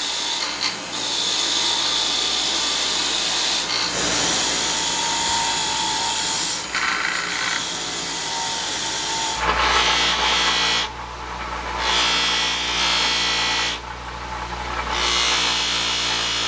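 Bench grinder's wire wheel running with a straight razor blade pressed to it, the wire bristles scratching off rust and old grime. About nine seconds in it gives way to a buffing wheel charged with coarse compound: a steady motor hum under a rubbing scrub that drops out twice as the blade comes off the wheel.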